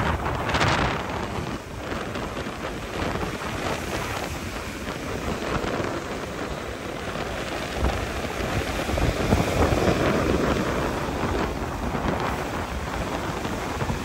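Rough sea waves breaking and washing over rocks, a continuous roar of surf that swells and eases, with wind rumbling on the microphone.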